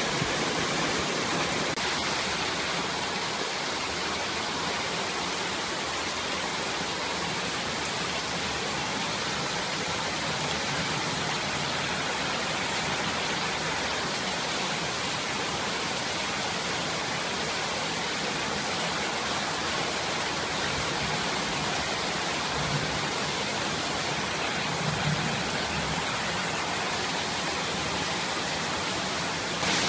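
Heavy rain pouring down, with runoff water rushing through the flooded street: a steady, unbroken hiss.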